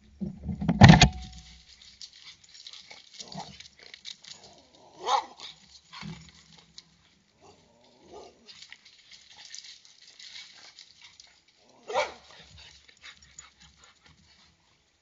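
Calls of a wild animal at night: a loud call about a second in, then shorter calls near five and twelve seconds, with smaller scuffling sounds in between.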